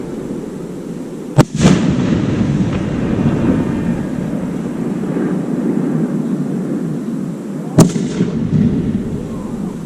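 Fireworks bursting: a sharp bang about a second and a half in, followed quickly by a second bang, and another bang near the end, with a steady low rumble between them.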